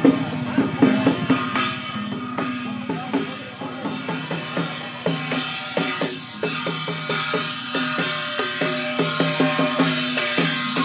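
Taoist procession percussion band of drums, gongs and cymbals, struck in a dense, fast, steady rhythm, with the gongs ringing on between strikes.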